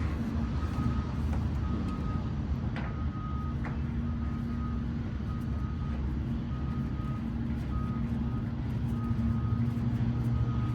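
Peterbilt 362 cabover truck's diesel engine idling with a steady low rumble, while a high electronic beep repeats a little faster than once a second.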